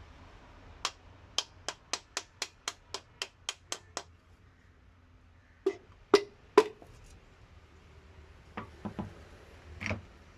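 Hand-tool work on an engine: a steady run of about eleven sharp clicks at roughly three a second, then three louder knocks, then a few softer taps near the end.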